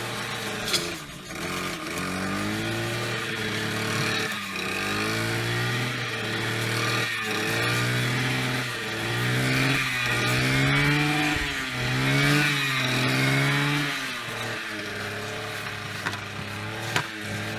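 An engine revving up and down repeatedly, its pitch rising and falling about once a second, most strongly in the middle of the stretch.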